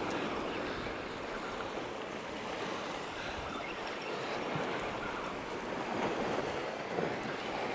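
Sea surf washing against shore rocks: a steady rushing noise that swells slightly about six to seven seconds in.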